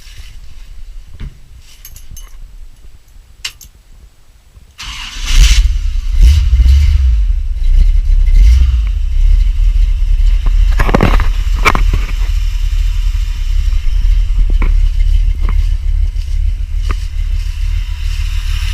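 Ford 390 V8 cranked by a new Powermaster high-torque gear-reduction mini starter. The starter whirs for only a moment about five seconds in, and the engine catches right away and keeps running steadily. The quick start shows the starter spinning the engine well.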